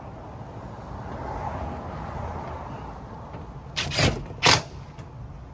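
Cordless drill driving a roofing screw through a used tin roof panel into an old screw hole: a steady whir for the first few seconds, then two short, loud bursts about four seconds in.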